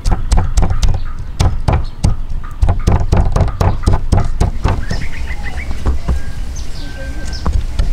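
Steel cleaver chopping a minced fish-paste mixture on a round wooden chopping block, in quick knocks about four a second. A little past halfway the chopping thins out and birds chirp.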